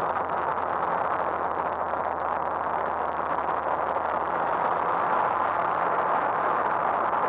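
Steady, even rushing noise of a camera drone in flight, with no distinct tone or rhythm.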